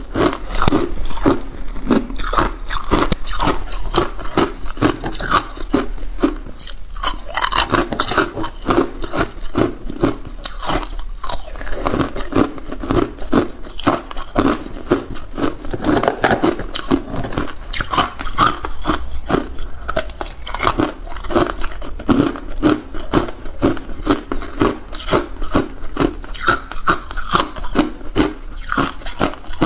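Hard clear ice being bitten and chewed close to the microphone: a continuous run of sharp cracks and crunches, several a second, as the cubes are broken up in the mouth.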